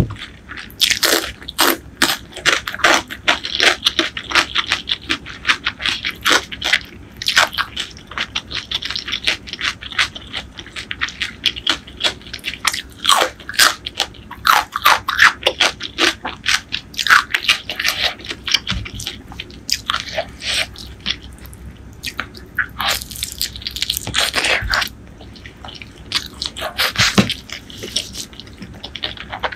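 Close-miked eating sounds: crisp, crunching bites of fresh cucumber and wet chewing, repeated irregularly, with a couple of brief lulls near the end.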